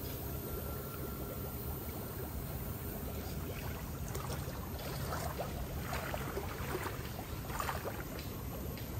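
Water splashing and sloshing as a worker wades through a shallow concrete fish pond and works a hand net through the water, in bursts from about four to eight seconds in, over a steady low rumble.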